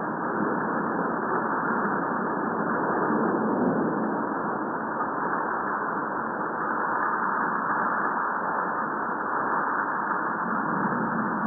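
Seismometer recordings of Fuego volcano played back as sound: a steady rushing noise with no distinct bangs or strokes.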